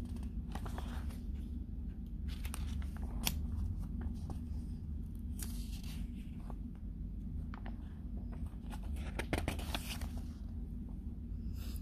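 Pages of a thin paperback book being turned and handled: paper rustling and crinkling in several short bursts, over a steady low hum.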